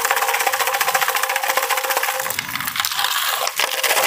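Fast, continuous metallic rattling from a shaken noise-making pipe, with a steady ringing tone underneath that stops about halfway through.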